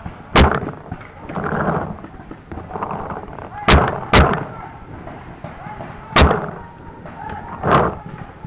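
Paintball marker shots: about five sharp pops at irregular intervals, two of them in quick succession near the middle.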